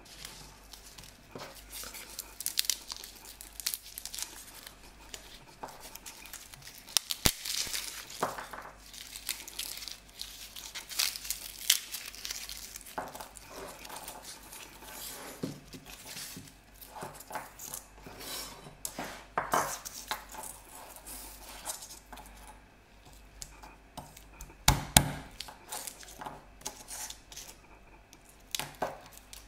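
A garlic bulb being pulled apart by hand and its cloves peeled, the papery skins crinkling and tearing in irregular rustles, with a couple of sharp knocks against the wooden cutting board. Near the end a chef's knife starts slicing a clove on the board.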